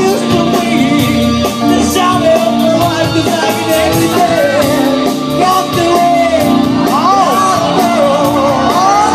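Live band playing an upbeat song with drums, electric guitars and a lead vocal.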